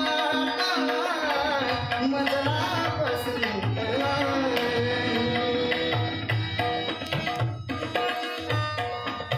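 A Marathi ghazal performed live with tabla and harmonium: a male voice sings an ornamented, gliding line over the first few seconds, then the harmonium holds the melody while the tabla keeps a steady rhythm with deep bass strokes.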